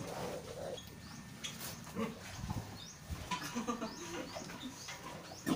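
Scattered, faint grunts and squeaks from a sow and her newborn piglets, with a few short high chirps among them.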